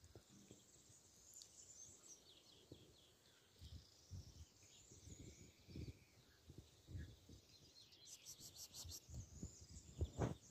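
Near silence outdoors: faint birds chirping in the background, with a quick high trill about eight seconds in and a few soft low knocks.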